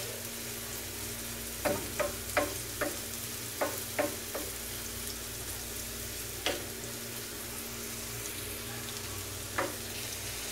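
Chopped onions sizzling in oil on a flat tawa griddle, stirred with a wooden spatula that knocks and scrapes against the pan in a string of sharp clicks, several close together in the first half and a couple more later.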